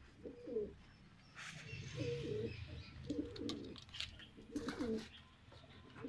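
Domestic pigeons cooing: a series of low, warbling coos repeating every second or so.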